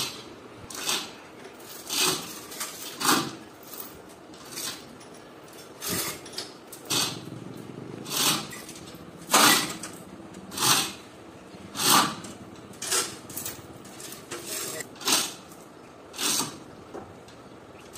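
Metal tools and engine parts knocking and scraping in a run of short clanks, roughly one a second.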